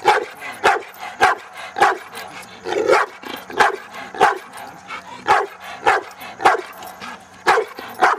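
A 14-month-old American Bulldog barking repeatedly at a steady pace, about one and a half barks a second. It is barking at a protection helper holding a bite sleeve, as in Schutzhund bark training.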